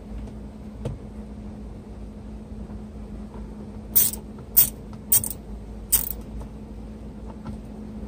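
Plastic steering-column trim on a Volkswagen Passat being worked loose by hand: four sharp plastic clicks about half a second apart, a few seconds in, over a steady low hum.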